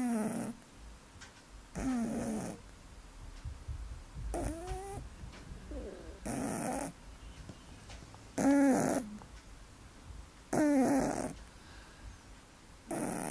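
A sleeping cat snoring: a short raspy snore with a pitched tone on each breath, about every two seconds, with fainter breaths between.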